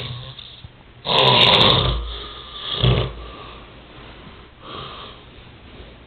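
Snoring: a loud snore about a second in, a shorter one just before three seconds, and a fainter one near five seconds.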